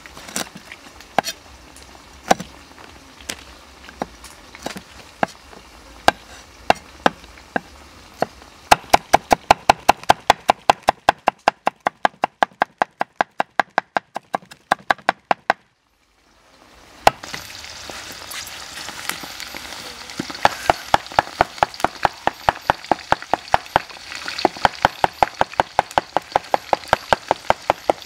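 Cleaver cutting on a round wooden chopping block: a few single slices through a fresh galangal root, then fast, even chopping of cloves at about five strokes a second. After a short break, oil sizzling as pieces of water snake fry in a wok, with regular knocks continuing over it.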